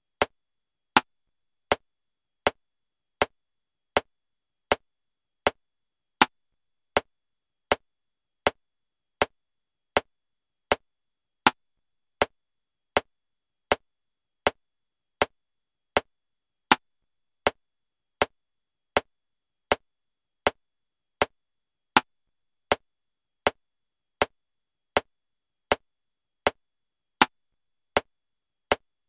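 Metronome clicking at 80 beats per minute in 7/4 time: a sharp click every three-quarters of a second, with a louder accented click on the first beat of every seven.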